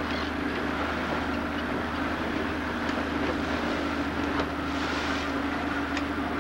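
Motorboat running at speed: a steady engine drone under the rush of water and wind past the moving hull.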